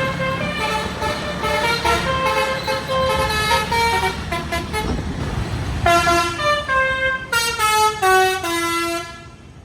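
Bus's Basuri multi-tone telolet horn playing a quick melody of stepped notes, ending in a falling run of notes and cutting off near the end, with the engine running underneath.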